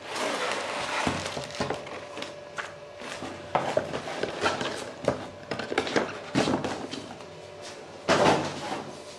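Clear plastic bag crinkling and cardboard packaging being handled, a run of rustles and light knocks with several louder crinkles spread through.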